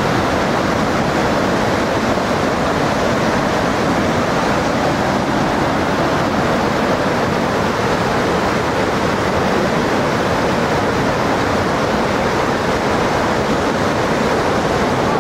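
Whitewater river rapids rushing over and around boulders: a loud, steady wash of water.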